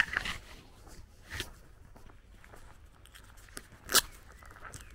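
Footsteps crunching on a gravel and dirt lane, with a single sharp click about four seconds in.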